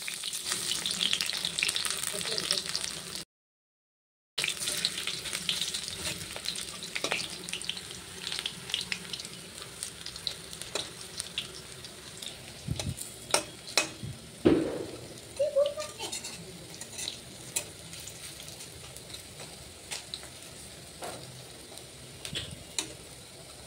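Cabbage fritters (bora) sizzling in hot oil in a metal kadai, with a metal spatula scraping and clicking against the pan as they are turned. The sizzle is strongest in the first few seconds, and the sound cuts out for about a second around three seconds in.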